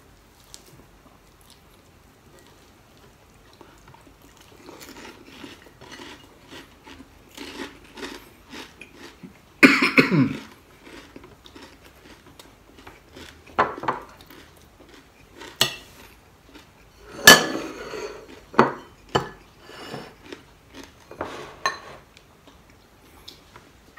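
Eating by hand: chewing and crunching crispy fried dried fish and chicharon, with plates and dishes clinking and knocking on the table. After a few quiet seconds come many small crackles and several sharp knocks, the loudest about ten seconds in.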